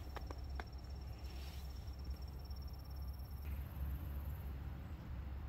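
An insect's high, thin, steady trill that stops about three and a half seconds in, over a low rumble, with a few light clicks in the first second.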